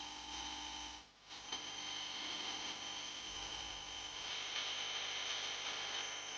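An electric motor running steadily with a high whine over hiss, dropping out briefly about a second in.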